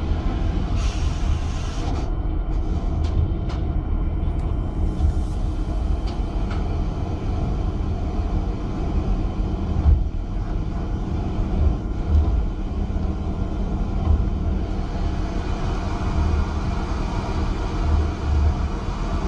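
Steady low rumble of a stern trawler's engines and trawl winches hauling the loaded net up the stern ramp, with a few short hissing bursts in the first few seconds.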